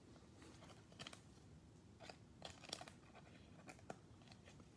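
A few faint, crisp clicks and crinkles from a clear plastic card sleeve and a trading card being handled in gloved hands.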